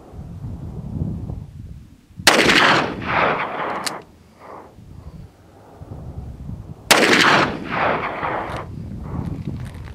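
Two shots from a Taurus Raging Bull .44 Magnum revolver with a 6.5-inch barrel, firing Remington 240-grain soft point rounds, about four and a half seconds apart. Each is a sharp crack followed by a rolling echo lasting over a second.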